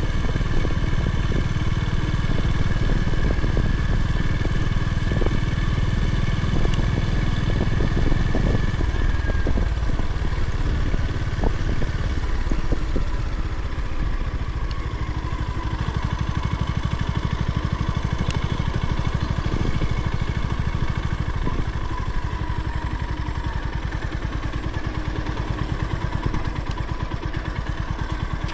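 Honda GB350's air-cooled single-cylinder engine running on the road with wind noise over it; about halfway through it eases off to a slower, even beat near idle.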